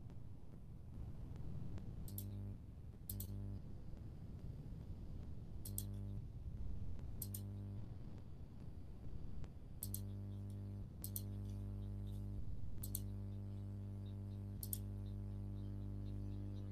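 A low, steady electrical hum with several evenly spaced overtones, as picked up by an open microphone on a call. About eight short, sharp clicks come at irregular intervals over it. The hum grows steadier and more prominent in the second half.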